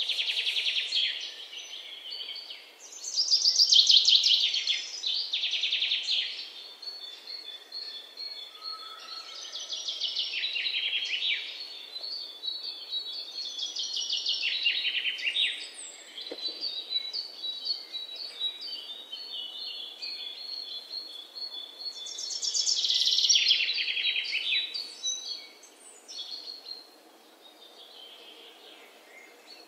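Birdsong: spells of rapid, high chirping trills that fall in pitch, with a thin high note repeated quickly between them.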